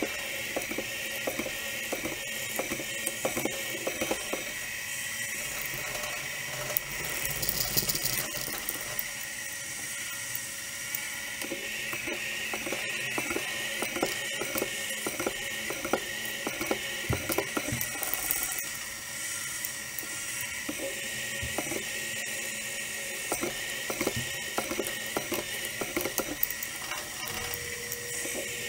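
A small milling machine's spindle drilling into an aluminium block with a twist drill: a steady machine whine under a constant, irregular crackle of small ticks as the chips break.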